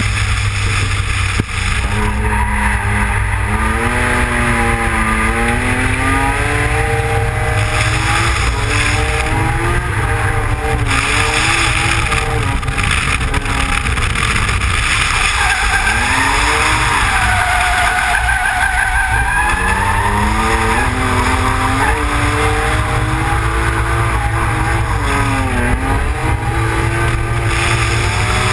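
Opel Manta drift car with a BMW M3 engine swap, heard from a mount on the car's body: the engine revs rise and fall again and again through the corners. The tyres squeal for a few seconds about halfway through.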